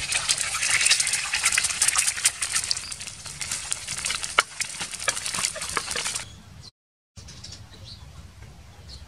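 Eggs frying in hot oil in a steel wok over a charcoal stove: a loud, steady sizzle with clicks and scrapes of a metal spoon against the pan as rice is tipped in. The sizzle stops abruptly about two thirds of the way through, leaving a much quieter background.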